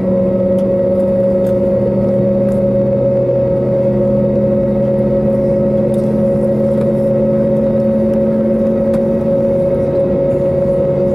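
Steady drone inside an Airbus A320neo cabin from the aircraft's running systems. Several low steady tones sit over an even rumble, and the lowest tones shift slightly in pitch about three seconds in.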